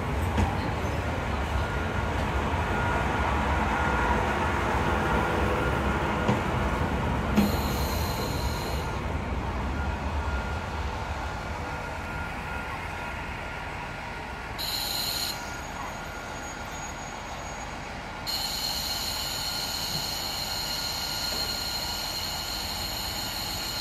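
KiHa 48 diesel railcar rolling slowly into a platform and braking to a stop, its rumble fading with faint brake or wheel squeal over the first several seconds. Once it has stopped the diesel engine idles, and a high hiss switches on and off three times, the last lasting through the end.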